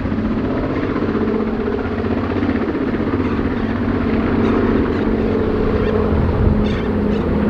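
The two Pratt & Whitney R-2000 Twin Wasp radial engines of a de Havilland Canada DHC-4 Caribou drone steadily at approach power as the aircraft comes in to land.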